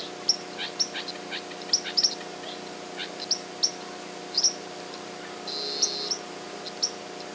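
Small birds chirping: many short, high chirps, several a second, some sliding down in pitch, with a brief buzzy note about two-thirds through, over a faint steady hum.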